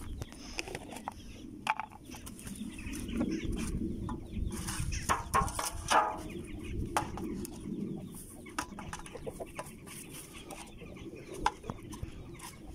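Domestic chickens clucking, with one louder hen call about six seconds in. Light clicks and rustles of plastic lids being handled as bulgur is scooped out for them.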